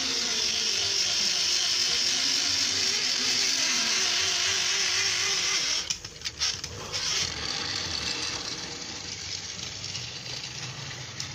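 Battery-powered toy train's small electric motor and plastic gears whirring steadily close up. About six seconds in the whirr cuts out and stutters as the locomotive is gripped by hand, then carries on quieter.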